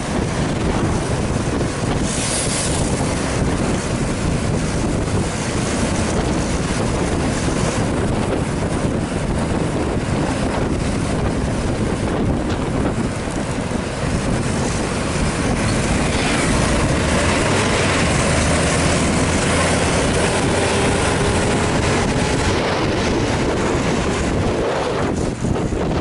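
Wind buffeting the microphone over steady road and engine noise from a vehicle travelling at speed. About halfway through, a faint engine note climbs slowly in pitch.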